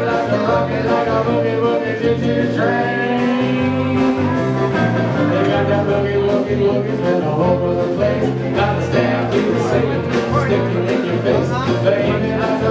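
Live country band playing a dance number: electric guitars over bass and drums with a steady beat.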